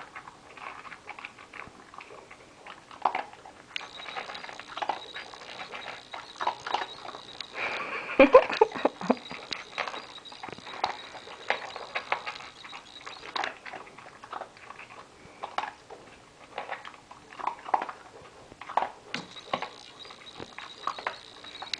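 A Corgi gulping dog food from a plastic bowl: rapid, irregular crunching and clicking of food and teeth against the bowl, with a louder burst about eight seconds in.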